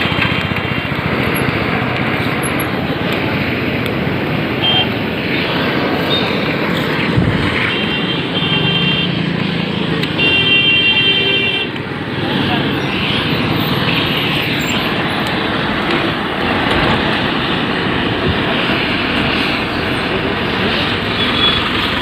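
Steady road traffic noise mixed with people talking. A vehicle horn sounds twice around the middle.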